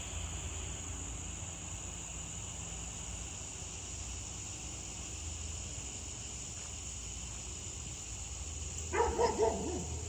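Steady high-pitched drone of crickets, then near the end a dog barks several times in quick succession.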